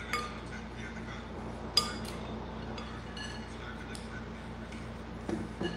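A spoon clinking against a glass soup bowl: two sharp clinks with a short ring, the louder one nearly two seconds in, and a few lighter taps. A couple of dull knocks near the end.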